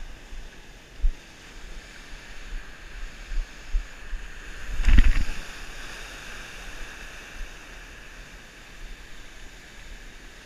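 Surf washing in shallow water, with wind buffeting the microphone in a few short low thumps. There is one louder rush about five seconds in.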